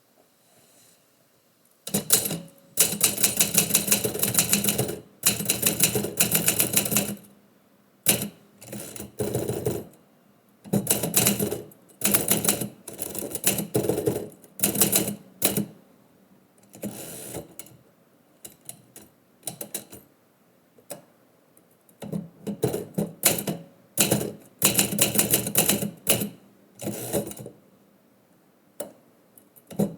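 Typewriter keys striking in fast runs of clacks, broken by short pauses and scattered single strokes.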